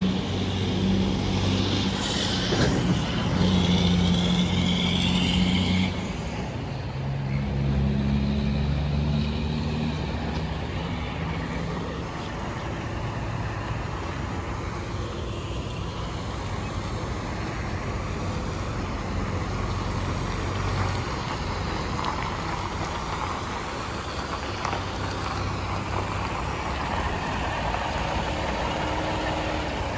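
Freightliner Cascadia semi-truck's diesel engine running as the tractor-trailer pulls away and turns, loudest in the first few seconds, its engine note changing pitch in steps before settling to a steadier run.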